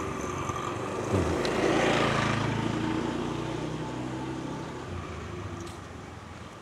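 Motorbike engine passing close by, growing louder about a second in and then slowly fading away.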